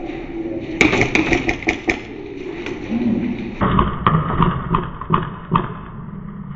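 Airsoft rifle shots, a string of sharp clicking pops in two runs: one about a second in, and another of about three shots a second after a cut midway, over a steady low hum.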